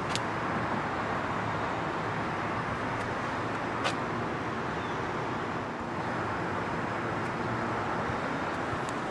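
2008 BMW 550i's 4.8-litre V8 idling steadily, with a single short click about four seconds in.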